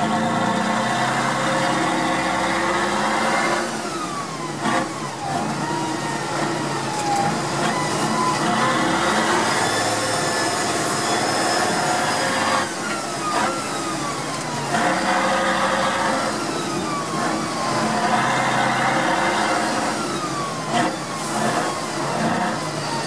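Tatra 813's air-cooled V12 diesel running hard under load, heard from inside the cab; the revs climb and fall back several times as it drives on loose gravel.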